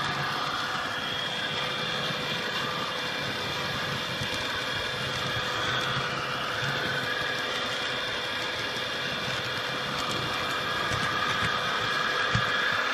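HO scale model train running steadily along the track, a constant hum and rattle with steady tones over it, and a single brief knock near the end.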